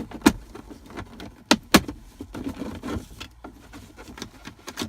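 Plastic clicks and rattles of a Jeep Grand Cherokee's console trim around the transfer case shift lever being unclipped and handled. The loudest are a pair of sharp snaps about a second and a half in.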